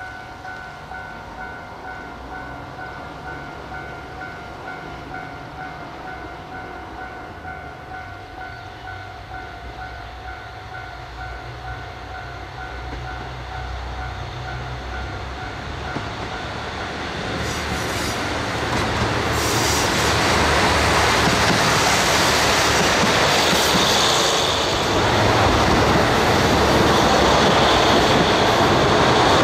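Diesel train at a station, its sound growing steadily louder through the second half and staying loud to the end. A steady high whine heard at first stops a little past halfway.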